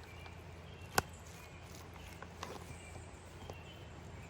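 Broccoli slaw being tossed in a bowl with a utensil: faint scattered ticks and one sharp click of the utensil against the bowl about a second in, over a low steady hum.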